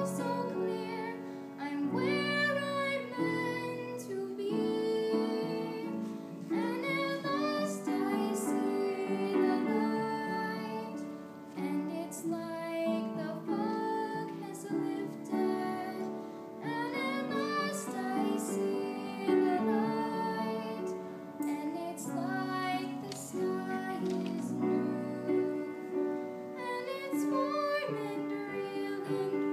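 A young woman's solo voice singing, with piano accompaniment.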